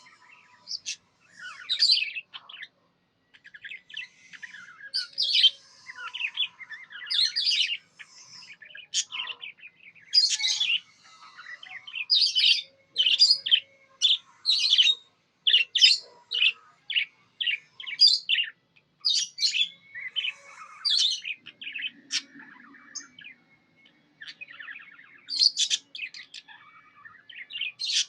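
Pet budgerigar chirping: a long run of short, high chirps, coming thickest in the middle.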